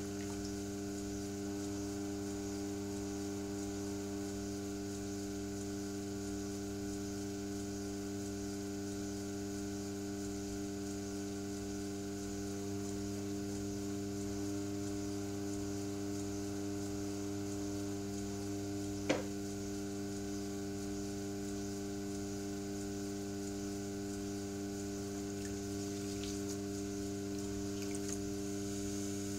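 Electric potter's wheel running with a steady low hum, and a single sharp click about two-thirds of the way through.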